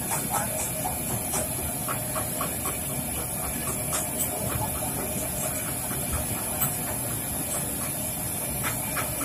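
Kachoris deep-frying in a wide kadhai of hot oil: a steady sizzle with frequent small pops and crackles.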